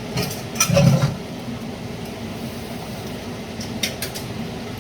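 Kitchen cookware clatter: a pan or utensil knocks loudly about a second in, and light clinks follow near the end, over a steady background hum.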